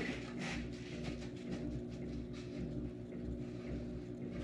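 Tubeless bicycle wheel being shaken and turned by hand so the freshly added sealant sloshes around inside the tire to coat the seams, heard as irregular swishes over a steady machine hum.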